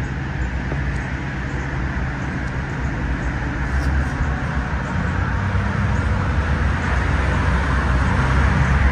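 Road traffic: a motor vehicle's engine rumble and tyre hiss, growing louder over the second half as it comes closer.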